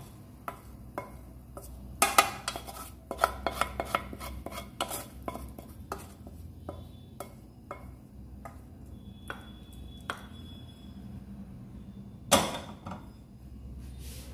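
Wooden spatula scraping and tapping thick cooked tomato chutney out of a metal pan into a glass bowl. A quick run of knocks and clinks lasts about three seconds, then come scattered taps, and one loud ringing knock near the end.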